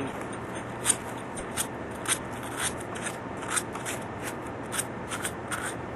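Abrasive scrubbing inside a 3/4-inch copper 90 elbow, cleaning the copper for soldering, in short rasping strokes about two to three a second.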